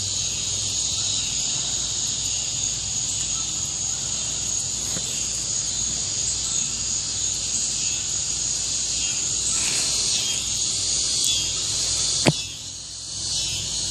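Steady insect chorus, a high even trilling buzz that carries on without a break, with one sharp click about twelve seconds in.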